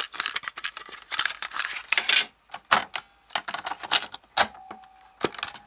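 Plastic clicks and clatter of a cassette being taken from its case and loaded into a Magnavox D 6600 portable cassette recorder, ending with sharper snaps of the cassette door and keys about four and a half and five seconds in.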